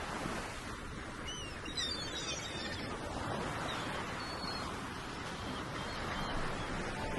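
Small birds chirping, a cluster of short calls about a second in and a single thin whistle later, over a steady rushing outdoor background noise.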